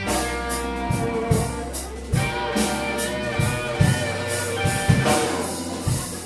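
Live blues band playing a slow blues with no singing: guitar lines over bass, drum kit and keyboards, with regular drum hits.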